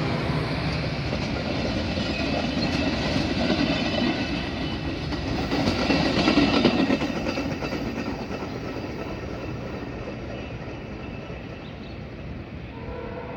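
Metra commuter train rolling on the rails with wheel clatter, growing louder to a peak about halfway through and then fading as it pulls away from the station.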